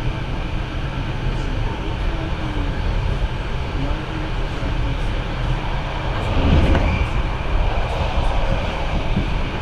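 SBB Interregio passenger train running at speed, heard from inside the carriage: a steady rumble of wheels on rails, swelling louder for a moment about seven seconds in.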